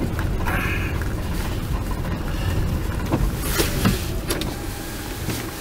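Steady low rumble of a vehicle driving slowly on a snow-covered road, with a few faint clicks and knocks about halfway through.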